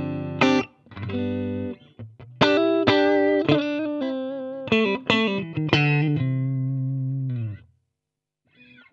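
Electric guitar played through an AmS Hurricane 20 combo amp: short chord stabs and phrases, then a held chord that rings and is cut off about three quarters in, a brief silence, and playing again near the end.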